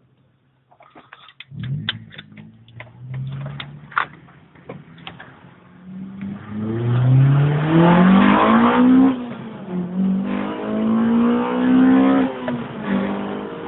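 Honda Civic Type R's four-cylinder VTEC engine, breathing through a Buddy Club Pro Spec exhaust and an AEM short-ram intake, accelerating hard from inside the car. The revs climb, fall back at an upshift about nine seconds in, climb again and fall at a second shift near the end. A few short sharp clicks and knocks come before the engine note builds.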